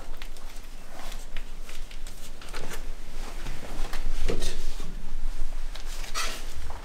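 Books being handled and shifted on metal shelving: irregular knocks, scrapes and rustles, with a louder knock a little over four seconds in.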